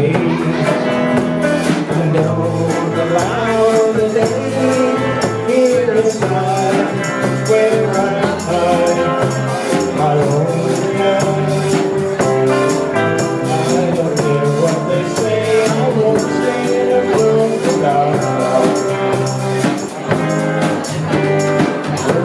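Live rock and roll band playing, with a steady percussion beat through the song.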